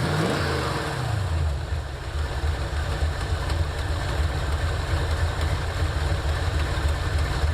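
1984 Ford Mustang GT350's engine idling steadily after a brief rev settles back down at the start.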